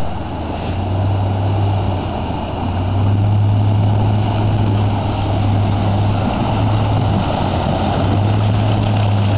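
Land Rover Discovery's engine running with a steady low drone as it pushes through deep water, with water rushing and washing around the body. It grows louder about three seconds in as the truck comes closer.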